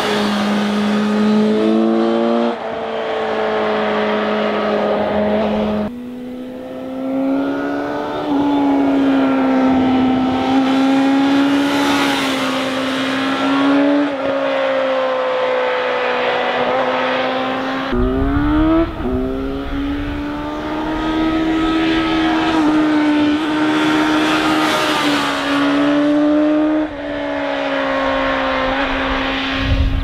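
Suzuki GSX-S750's inline-four engine under way, revving up and down as the bike is ridden hard through bends. Its pitch rises and sags with the throttle, with a sharp climb under acceleration about two-thirds of the way in and a few abrupt jumps in pitch.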